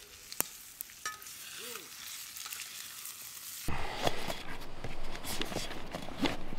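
Food sizzling in a skillet over a campfire, with a few sharp clicks of a spatula against the pan. A little under four seconds in, it switches abruptly to louder rustling and clicking of webbing straps and pack fabric as a rifle is strapped down onto a backpack.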